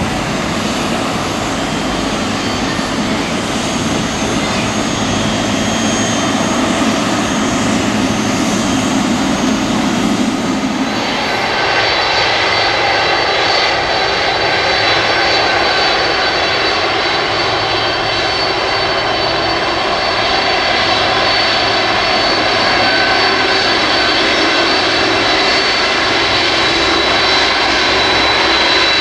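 Jet engines of a taxiing twin-engine Boeing 777 airliner at taxi power, a steady rumble and hiss. About eleven seconds in it changes to the four engines of a taxiing Boeing 747-400, a steady high whine over the engine noise.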